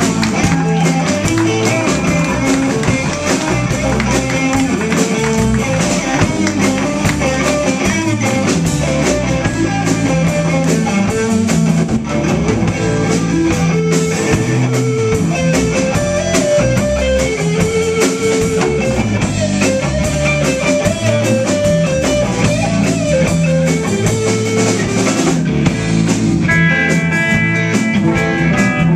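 Live blues band playing: electric guitar lines over bass guitar and drum kit.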